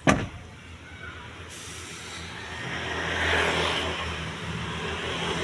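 A single sharp thump right at the start, then a vehicle passing, swelling to a peak about three seconds in and easing off, over a steady low engine hum.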